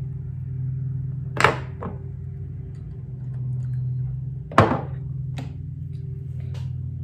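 Sharp clicks and taps of makeup items being handled, a foundation bottle and a brush, with two louder clicks about a second and a half in and near the middle, over a steady low hum.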